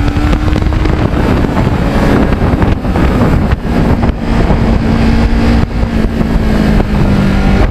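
Kawasaki Ninja 650R's parallel-twin engine running at road speed, heavily buffeted by wind noise on the microphone. Its note steps down about three and a half seconds in and then sinks slowly.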